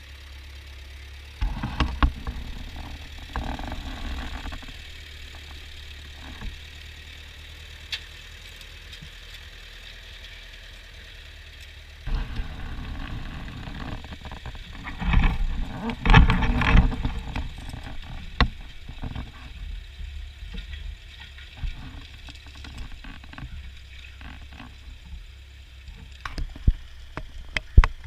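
Ford farm tractor engine running steadily with a low drone, broken by irregular loud bursts of rumbling and sharp knocks, the heaviest a few seconds in and again from about halfway through.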